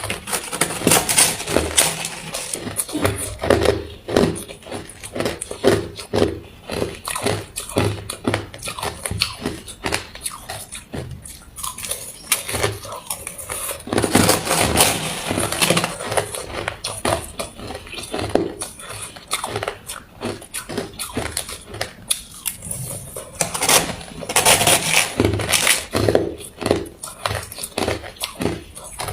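Ice being bitten and chewed: loud crunching and crackling with a chewing rhythm, and harder bursts of crunching as fresh bites are taken, about three times (near the start, in the middle and near the end).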